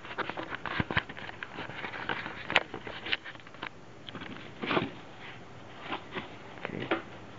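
Plastic bag wrapping a boxed laser printer crinkling and rustling as hands handle it, with light knocks of the foam packing and cardboard carton. A sharp click comes about two and a half seconds in.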